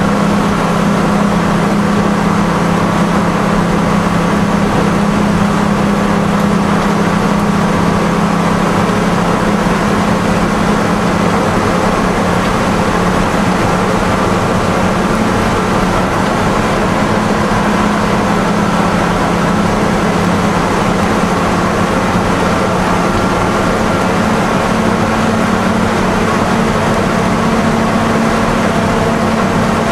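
Detroit Diesel 6-71 two-stroke inline-six diesel of a Seagrave fire engine, heard from inside the cab as the truck drives along. It runs with a steady drone, and the engine speed shifts only slightly.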